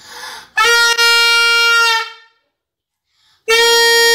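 Plastic toy horn blown in two steady one-note blasts: the first lasts about a second and a half, then a short gap, and the second starts near the end and is still sounding.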